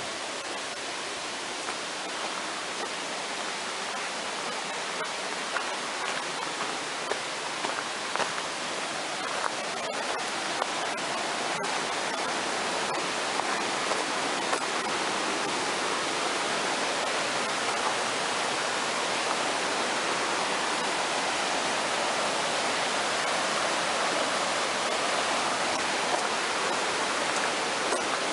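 Mountain stream rushing over rocks, a steady rush of water that grows slightly louder as it goes. A few faint clicks about ten to twelve seconds in.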